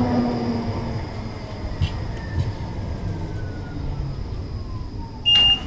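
Electric tram running alongside a platform: a low rumble of wheels on the rails with a whine that falls slowly in pitch. A loud high beep starts near the end.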